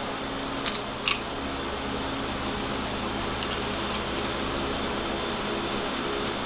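Steady motor hum, like a running fan, with two light clicks about a second in.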